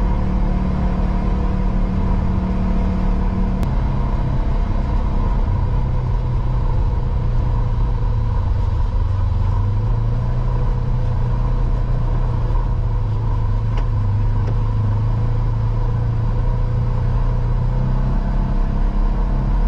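UTV engine running while driving a rough dirt trail; its note drops about four seconds in and climbs again near the end.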